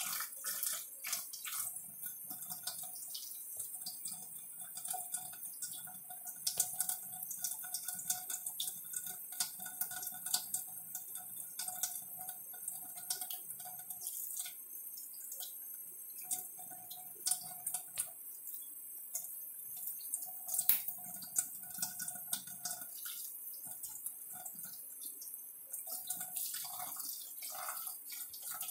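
Kitchen faucet running steadily into a steel bowl in a stainless-steel sink, with frequent splashes and drips as a macaque paws at the stream.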